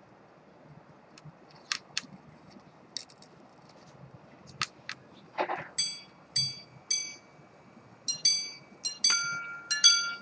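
Antique minute-repeater pocket watch chiming: its hammers strike the gongs with ringing metallic notes, first three evenly spaced strikes on one note, then a quicker run of strikes in which a lower note joins near the end. Before the chiming, a few light clicks and a short rasp from the mechanism being handled.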